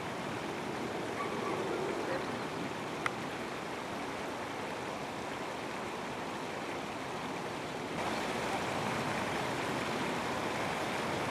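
Steady, even outdoor background hiss with nothing pitched in it, a little louder from about eight seconds in, and one faint click about three seconds in.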